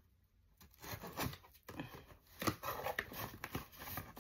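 Scissors slitting the packing tape on a cardboard shipping box, then the cardboard flaps rustling and scraping as they are pulled open: a run of irregular clicks, scrapes and crackles starting about half a second in.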